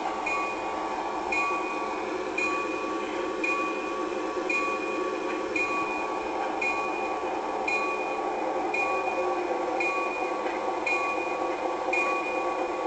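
A locomotive bell ringing steadily, about one stroke a second, over the steady noise of the train.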